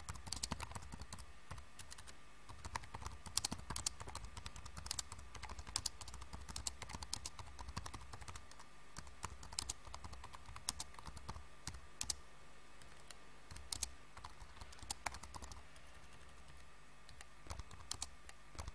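Faint typing on a keyboard: irregular runs of key clicks with short pauses between them, over a low steady hum.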